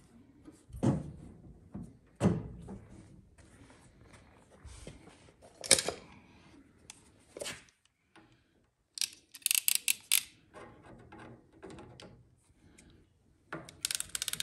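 Blue PEX air line being handled and pushed into a tee fitting, giving a couple of dull thunks, then an Apollo cinch-clamp tool worked on the tee's fittings: a few sharp clicks, then quick runs of metallic clicks about nine seconds in and again near the end.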